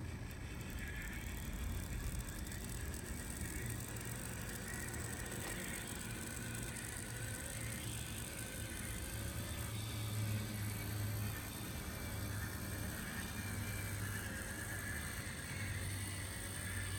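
Brass HOn3 model diesel locomotive, a heavily geared-down Katsumi-built D&RGW #50, running slowly along the track with a coach in tow: a steady low motor-and-gear hum with the wheels rolling on the rails.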